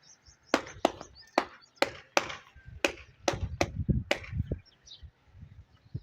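A hand tool knocking sharply on tile and mortar during tiling work: about nine irregular strikes over some four seconds, with duller low thumps mixed in toward the middle.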